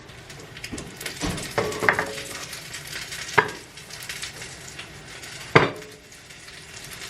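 Fish sizzling in a frying pan, with a steady hiss and utensils clinking against the pan and dishes; the sharpest clinks come about three and a half and five and a half seconds in.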